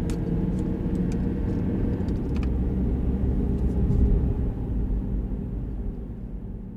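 Steady low rumble of a car driving, heard from inside the cabin, with a few light clicks in the first couple of seconds; it fades near the end.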